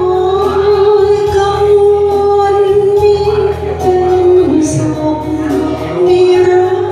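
A woman singing over backing music, holding a long note for the first few seconds, then moving through a short phrase into another long held note.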